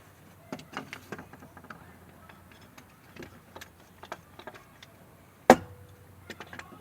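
Scattered light clicks and taps of clamps and wooden parts being handled as a glued-up box is clamped, with one sharp knock about five and a half seconds in.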